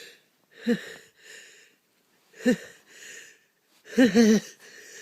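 A person's sharp, voiced gasps in the build-up to a sneeze: three short 'ah' catches of breath, the last one doubled, each followed by a softer breathy rush of air.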